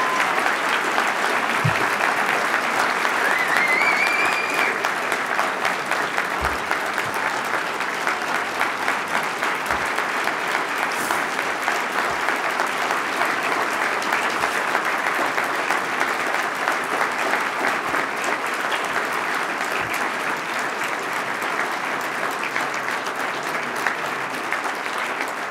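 A large audience applauding at length, with one person's rising cheer about three seconds in; the clapping eases slightly toward the end.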